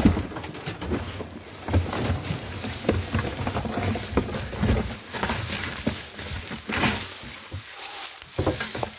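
A thump at the start, then irregular rustling and crackling of dry leaves and grass as someone moves through them, with wind buffeting the microphone.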